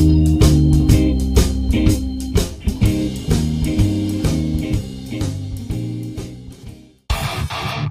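Background music: a blues-rock track with guitar and organ over a steady beat fades out, and about seven seconds in a new, strummed electric-guitar track cuts in.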